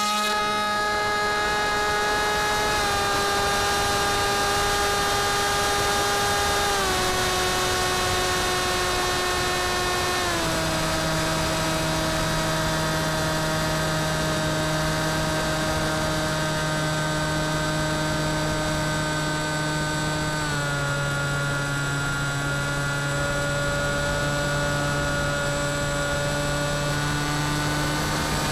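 Brushless electric motor and propeller of an FX-61 Phantom flying wing running in flight, heard up close from a camera mounted on the aircraft. Its steady whine steps down in pitch about four times as the throttle is eased back.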